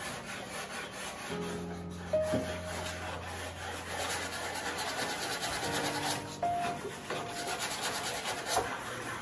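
Hand sanding of a hardwood guqin bridge piece (yueshan): rapid back-and-forth rubbing strokes as the excess wood is ground off to fit the instrument's curve. Background music plays underneath.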